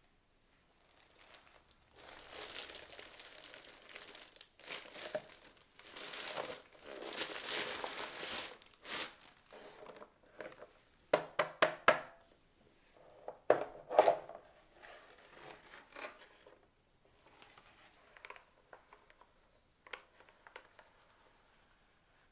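Packaging being unwrapped: stretches of crinkling and tearing, then two quick runs of sharp clicks a little past the middle, followed by lighter rustling.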